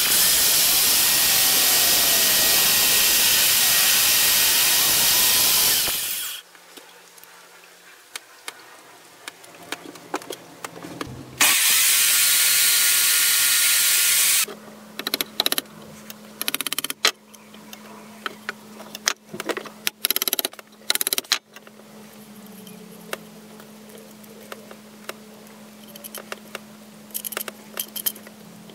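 Electric drill clamped under a workbench running for about six seconds, stopping, then running again for about three seconds, during work on small wooden parts. Scattered clicks and knocks from handling the wooden pieces follow over a low steady hum.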